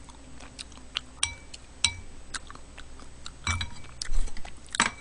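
Chewing and mouth sounds close to the microphone, with sharp clinks of a metal spoon and chopsticks against a ceramic soup bowl, the loudest clinks about three and a half seconds in and near the end.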